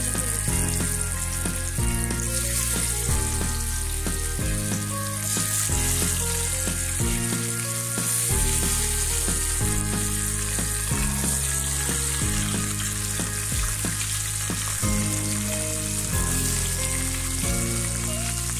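Spice-coated sand goby fish sizzling steadily as they shallow-fry in hot oil, with more fish laid into the pan one after another. Background music plays underneath.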